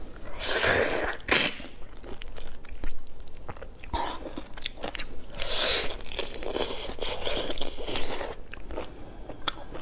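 Close-miked eating of a whole raw tiger prawn: the shell crunches and crackles as it is bitten and pulled apart, with chewing between. The noisiest spells come near the start and again from about four to eight seconds in.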